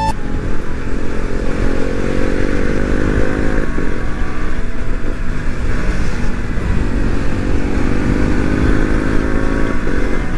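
KTM Duke single-cylinder motorcycle engine under way, its pitch rising as it accelerates through a gear. It drops sharply at a gear change about a third of the way in, then climbs again.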